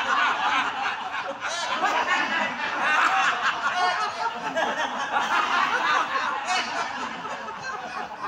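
A group of adults laughing together without a break, many voices overlapping, in a laughter-yoga exercise.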